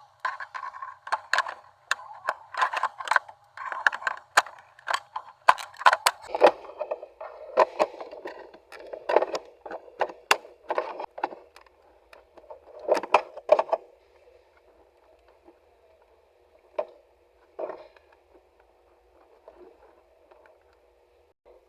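Irregular clicks, taps and light scrapes of hard plastic parts being handled, dense for about the first fourteen seconds and then only a few scattered clicks.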